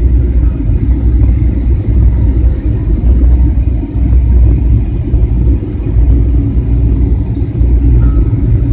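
Steady low rumble of an airliner cabin on final approach, engine and airflow noise heard from inside the cabin.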